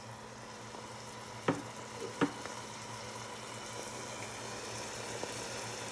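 Chopped onions in olive oil sizzling gently in a pot on the stove, with a steady hiss that grows a little louder. Two sharp taps about a second and a half and two seconds in are the loudest sounds.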